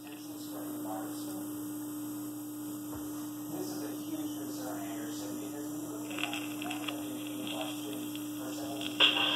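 Steady electrical hum from a 1967 Philco Hip Pocket portable record player, with a few faint light clicks as the tonearm is set down on the spinning record. About nine seconds in, the record starts playing music loudly through the player's small built-in speaker.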